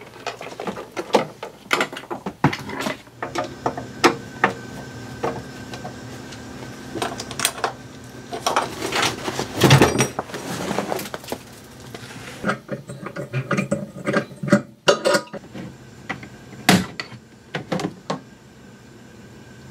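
Car interior trim being taken apart by hand: plastic door and trunk panels and their clips clicking, knocking and rattling as they are pried and pulled free. The loudest part is a rustling stretch about ten seconds in, as the trunk carpet is lifted out. A steady hum runs beneath the first half.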